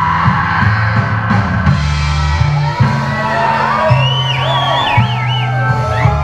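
Rock-style band music with drums and a bass line stepping between notes; from about halfway in, high wavering notes that slide up and down ride over it.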